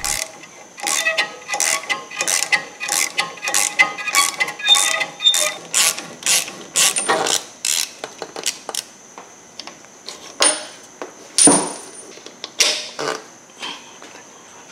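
Hand ratchet clicking in steady strokes as it works loose the nut of a front sway bar end link. The clicking slows to a few scattered clicks and knocks after about nine seconds.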